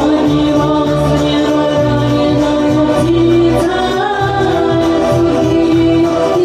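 Music: a woman singing long held notes over a karaoke backing track.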